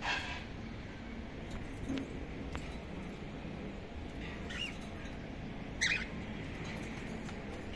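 A cockatiel giving three short high chirps, one at the start, one past the middle and the loudest near the end, with a few faint clicks between them over a steady low background hum.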